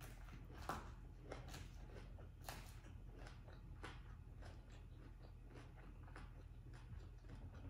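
Faint eating sounds: scattered soft clicks and crunches as a fork picks salad leaves from a plastic container, with chewing, over a low steady hum.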